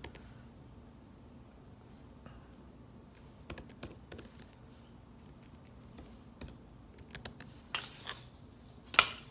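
Computer keyboard keys tapped in a few short, irregular bursts, with a louder knock a little before the end.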